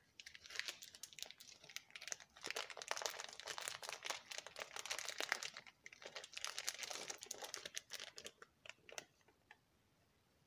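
Foil coffee packet crinkling as it is handled and turned in the hand, in long stretches of crackling with short pauses, stopping about nine seconds in.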